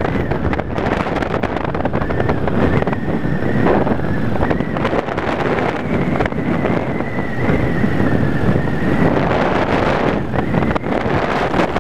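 Wind rushing over the microphone of a moving Yamaha Wild Star V-twin cruiser motorcycle, with its engine running steadily at road speed beneath it. A faint thin high whistle wavers through much of it.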